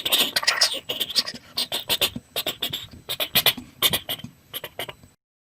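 Mouth-made imitation of a steam locomotive: a run of sharp, breathy chuffs that become fainter and more widely spaced, like a train slowing down, then cut off abruptly about five seconds in.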